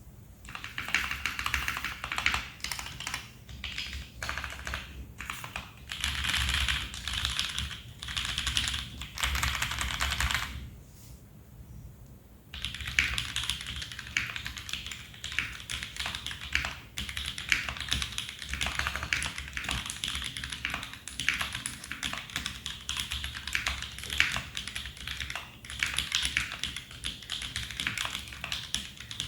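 Typing on a custom 65% mechanical keyboard: C3 Kiwi tactile switches lubed with Krytox 205G0 and filmed, on a brass plate in a foam-dampened Tofu65 case, with PBT doubleshot Cherry-profile keycaps. Fast, continuous keystrokes, with a pause of about two seconds roughly eleven seconds in.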